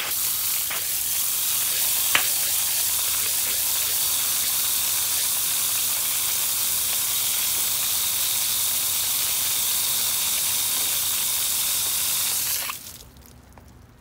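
Hose spray nozzle spraying water onto a freshly sawn sycamore slab: a steady hiss of spray on wet wood that cuts off suddenly near the end, with a couple of faint ticks in the first few seconds.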